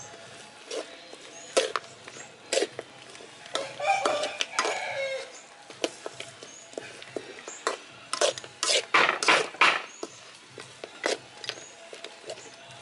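Irregular knocks and clatter of cooking utensils being handled, busiest near the end. A short animal call sounds about four seconds in.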